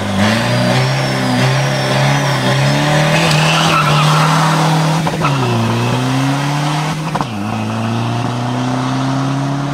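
Diesel pro street 4x4 drag truck's engine accelerating hard, its pitch climbing steadily. The pitch drops at two gear changes, about five and seven seconds in, and climbs again after each.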